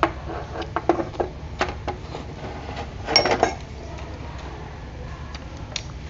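Metal spoon clinking and scraping against small ceramic bowls: a few sharp separate clinks in the first two seconds, then a denser clatter with a brief ring about three seconds in.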